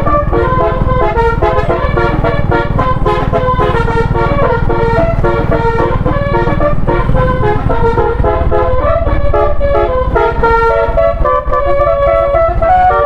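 Bus 'telolet' multi-tone air horn playing a melody in quick stepped notes over a steady low rumble.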